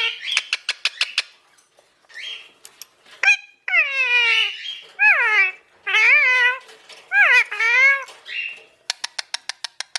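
Ringneck parrot giving a string of loud calls, each a bending, mostly falling note. Between them a small bell toy rattles in quick taps near the start and again near the end.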